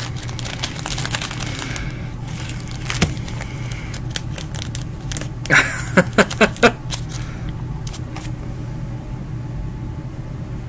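Crinkling and rustling of plastic card sleeves as trading cards are slid into them, with scattered clicks. A run of short squeaky scrapes comes about six seconds in, over a steady low hum.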